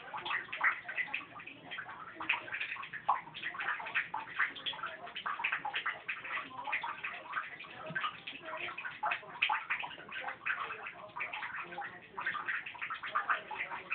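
A ferret and a small dog wrestling: a dense, irregular run of quick clicks, scuffles and chatter that never lets up.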